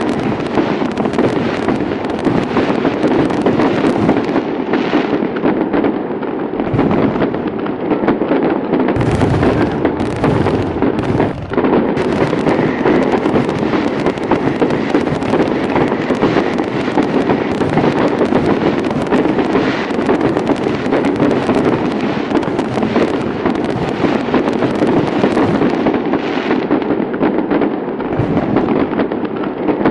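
Fireworks display: a dense, continuous barrage of bangs and crackling with no pauses.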